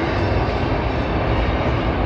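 Jet engines of Thunderbirds F-16 fighter jets taking off, a loud steady roar heavy in the low end.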